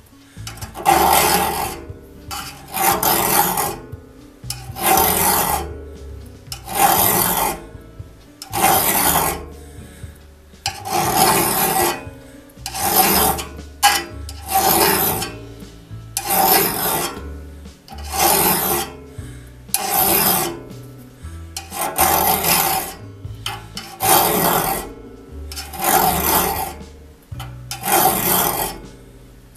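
Flat file rasping across a pointed tooth of a one-man crosscut saw in slow, even strokes, about one every two seconds. The jointed tooth is being filed along its original bevel back to a point, until the shiny flat left by jointing is gone.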